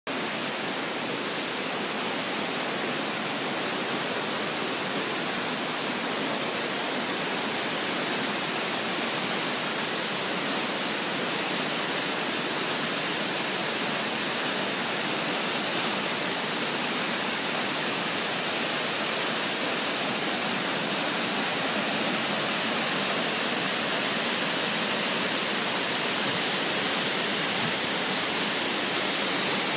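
Steady rush of the Misol-Ha waterfall, a hiss of falling water that grows slowly louder.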